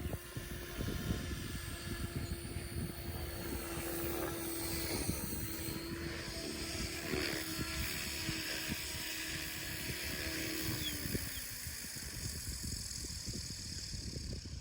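Electric RC helicopter (MSH Protos 380) running with a steady motor and rotor whine. About eleven seconds in, the pitch drops and fades as it spools down.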